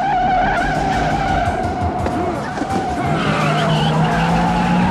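A car's tyres squealing in one long, wavering screech, while the car's engine note rises from about three seconds in.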